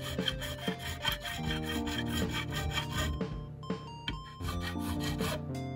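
Fret-crowning file rubbing back and forth over a bass guitar's metal fret in repeated rasping strokes, rounding the fret top. Background music plays underneath.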